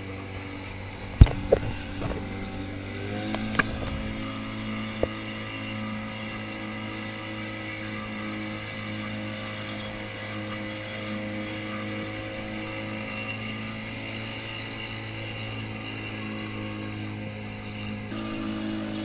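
Motorboat engine running steadily at speed, its note rising about three seconds in. A few sharp knocks come in the first five seconds, the loudest about a second in, like the hull slamming on waves.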